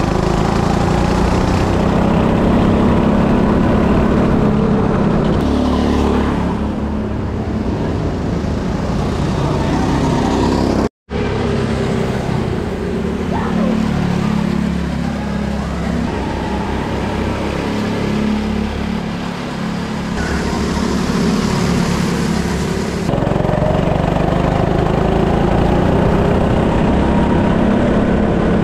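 Go-kart engine running steadily under throttle, heard close up from the driver's seat as the kart laps the track. The sound cuts out for an instant about eleven seconds in.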